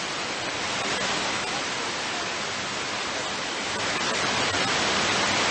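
Steady hiss of static from a VHF airband radio receiver with no voice on the frequency, between air traffic control transmissions.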